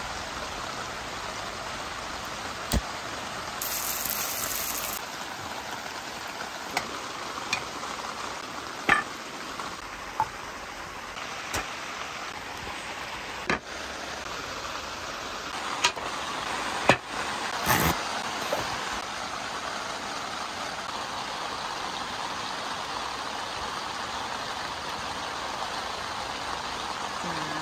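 Food frying in a pan with a steady sizzle, broken by scattered sharp clicks and knocks of utensils, the loudest about halfway through.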